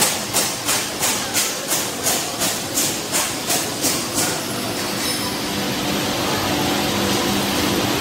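Pneumatic spray guns over stainless-steel chocolate coating pans giving short hissing bursts of air, about three a second, that stop about four seconds in, over the steady running noise of the coating machines.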